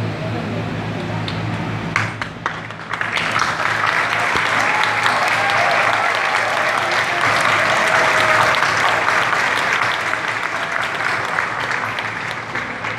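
Large crowd applauding. The applause swells in about three seconds in, holds, and tapers off near the end.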